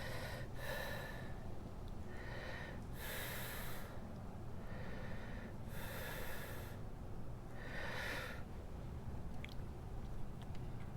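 A man breathing hard, about seven loud breaths in and out over the first eight seconds, then quieter, while straining to force a plug into a punctured tire.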